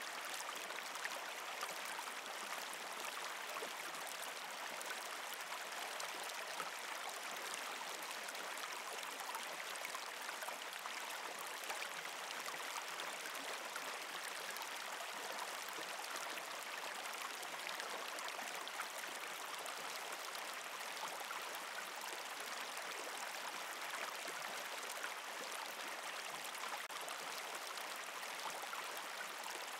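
Steady sound of running water, even and unchanging, with no other sound over it.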